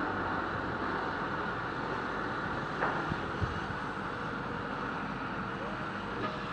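Mobile crane's engine running steadily while it hoists a prefab roof panel, with two short knocks about half a second apart around the middle.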